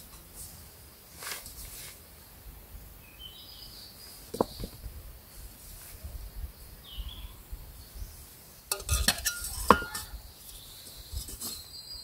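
Camping cookset pots and a burner stand clinking and clattering as they are handled and fitted together: scattered light clicks, then a quick flurry of metal clanks about nine seconds in, the loudest of them near ten seconds.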